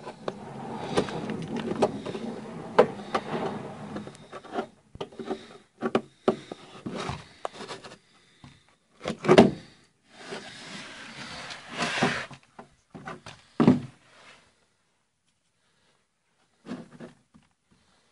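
Handling noise against a rusted car underbody: irregular rubbing, scraping and short knocks, with a louder thump about nine seconds in and another about fourteen seconds in, then mostly quiet with one short rustle near the end.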